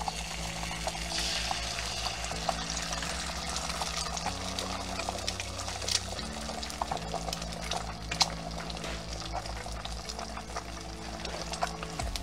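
Eggs frying in ring molds in a stainless steel skillet, just cracked into the hot pan: a steady sizzle scattered with small pops and crackles.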